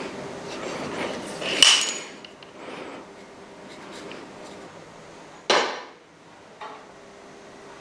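Metal motorcycle parts and tools being handled on a workbench: scraping and rattling, then a sharp ringing metal clank, a second hard knock a few seconds later and a small click.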